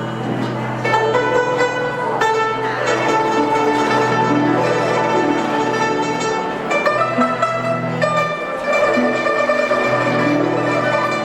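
Chinese traditional orchestra playing a melody, plucked strings to the fore over sustained low notes.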